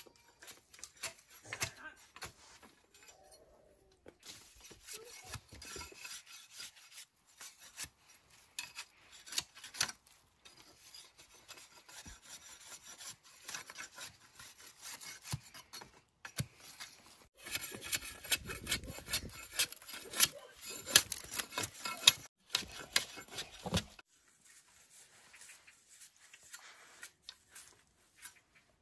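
Machete blade scraping and shaving a green bamboo pole in quick, irregular rasping strokes. The strokes are loudest and densest about two-thirds of the way through, then thin to faint scratching near the end.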